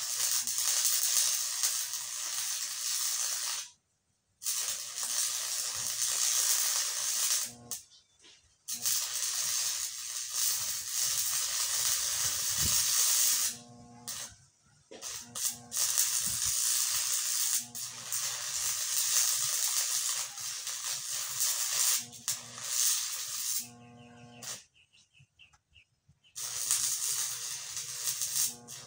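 Electric arc welding a new tooth onto a loader bucket: a sizzling, crackling hiss in runs of several seconds, broken off abruptly about four times as the arc is stopped and struck again.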